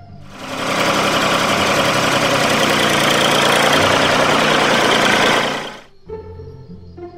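A tractor engine running steadily for about five seconds, rough and loud, cutting off abruptly near the end, over background music.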